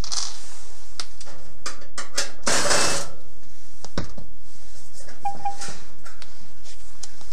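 Sheet-metal rear console panel of a range being handled and lifted off: scattered metallic clicks and rattles, a scraping rush about two and a half seconds in, and a single knock about four seconds in.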